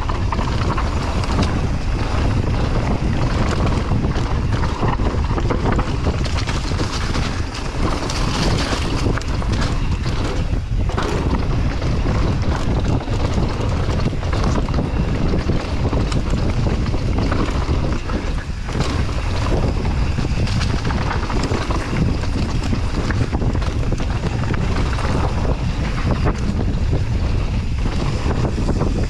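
Wind buffeting the microphone of a camera riding on a mountain bike down a dirt trail, over a steady low rumble of tyres on the ground, with frequent small rattles and knocks from the bike over rough terrain.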